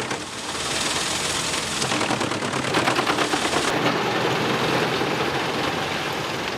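Wood chipper shredding wood: a dense, rapid crackle of cracking and splintering impacts over the running machine.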